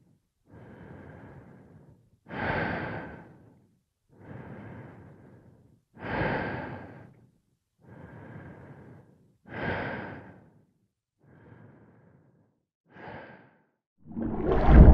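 Sound effect of a person breathing slowly inside a helmet: strong breaths alternating with softer ones, each about a second long, with a faint ringing tone in every breath. Near the end a louder, deep noise cuts in.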